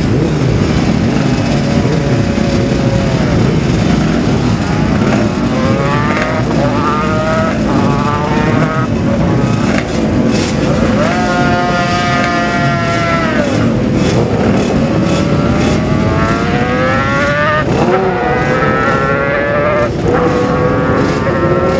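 Several classic racing motorcycles running at once, their engines revved up and down over one another, with distinct rising sweeps as individual bikes are opened up, about halfway through and again near the end.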